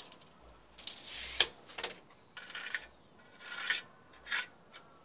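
A spirit level scraping and knocking against a rough concrete-block wall as it is positioned: a handful of short rasping scrapes with a few sharp clicks between them.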